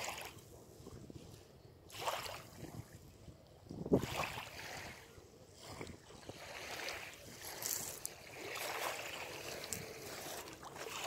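Small lake waves lapping on a pebble shore, swelling in a few surges over the first four seconds and then a steadier wash, with wind on the microphone.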